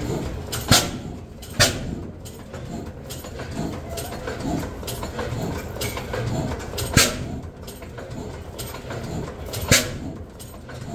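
Vintage single-cylinder stationary engine running, with four sharp exhaust bangs at uneven intervals, two close together early and two later, over a steady mechanical clatter.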